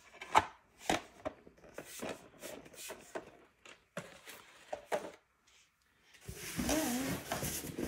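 Plastic oil-paint box lid snapping shut with a sharp click, followed by a few lighter knocks and taps as the box is handled and set down. Near the end, a longer rustling scrape of cardboard.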